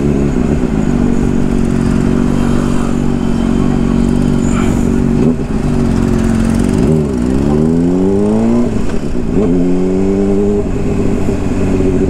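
Honda CBR600RR's inline-four engine running at steady revs under the rider, then about two-thirds in the revs dip and climb again twice.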